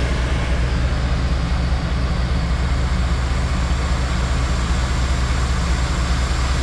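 ALLTOP 12V portable piston air compressor running steadily under load, a loud even drone with air hiss, pumping air through a hose manifold into four tires aired down to about 16 psi.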